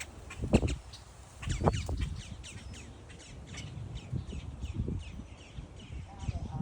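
Birds gathered at feeding time calling, a rapid string of short, high, falling calls, with a couple of low knocks in the first two seconds.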